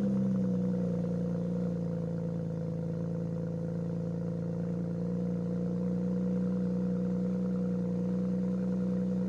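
BMW N54 twin-turbo inline-six engine idling steadily.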